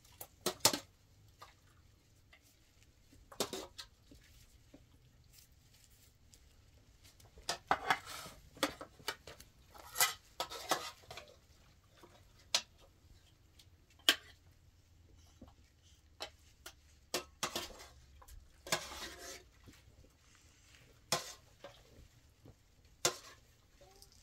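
Metal ladle clinking and scraping against a stainless steel pot as stew is dished out onto plates, in irregular knocks and clinks with brief ringing.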